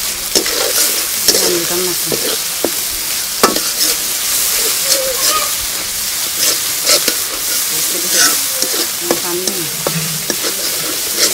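Onions and spice paste sizzling in hot oil in a large metal karahi, stirred with a flat metal spatula that scrapes and knocks against the pan at irregular moments.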